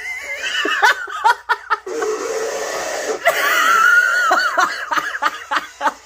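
Audio of a YouTube Poop edit playing: high-pitched, wavering voice-like squeals and laughter, chopped into short pieces by abrupt cuts, with a hissing noisy stretch in the middle.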